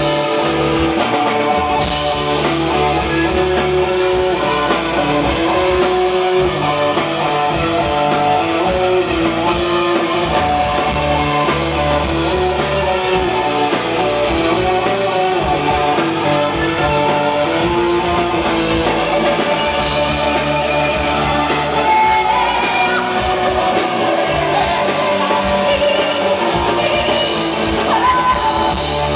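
Live rock band playing: sustained electric guitar chords over bass and drums, loud and continuous.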